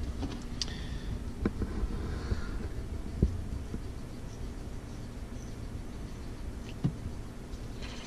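Quiet handling sounds of a tinned crimp contact being twisted onto the stripped copper strands of a heavy booster cable, with a few faint clicks, over a low steady rumble.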